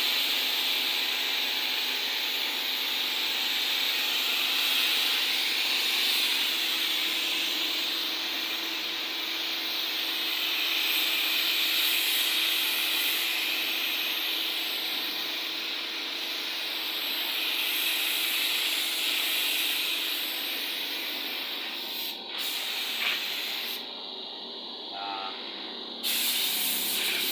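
Gravity-feed paint spray gun spraying a car body panel: a steady hiss of compressed air and atomised paint for about twenty seconds. Near the end it breaks into a few short bursts with gaps between them.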